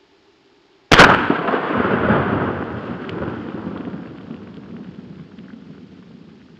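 A single 12-gauge pump shotgun blast firing 00 buckshot, about a second in, followed by a long echo that slowly fades over several seconds and cuts off abruptly.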